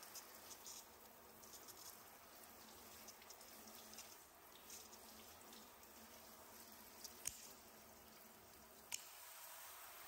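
Faint water trickling and dripping from a garden hose, a steady low hiss with scattered drips and two sharper ticks in the second half.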